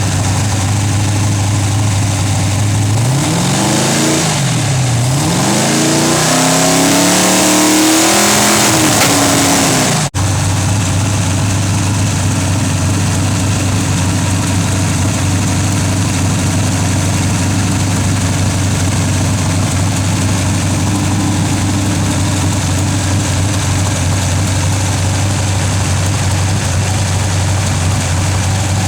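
Freshly rebuilt engine idling steadily, revved up and down several times between about three and ten seconds in, then settling back to a steady idle after a brief dropout.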